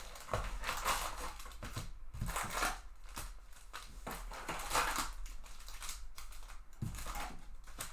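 Thick cellophane wrap being torn and crumpled off a sealed trading-card box: irregular crinkling and crackling.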